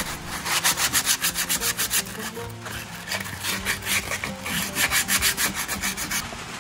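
Sandpaper on a hand-held sanding pad rubbed quickly back and forth over softwood boards, lightly sanding freshly cut edges. The scratchy strokes come fast and even, about six or seven a second, and stop shortly before the end.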